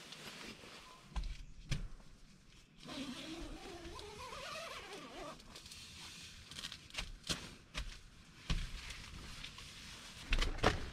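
Rustling of nylon tent fabric and sleeping bags, with shuffling, low thumps and sharp clicks, as a person moves about inside a tent and crawls out through the door. A brief wavering pitched sound comes about four seconds in.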